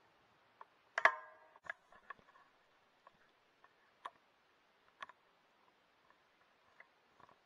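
Scattered small clicks and taps of a rifle and scope being handled, picked up by the scope's built-in microphone. About a second in comes one louder click with a short squeaky ring; the rest are faint ticks a second or so apart.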